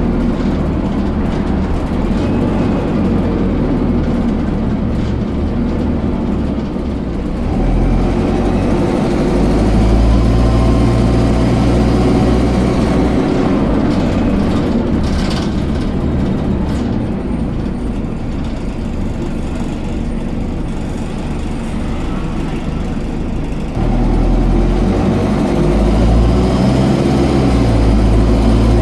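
Dennis Dart SLF single-deck bus's diesel engine running under way. It grows louder as the bus pulls away about a third of the way in and again near the end, and eases off in between.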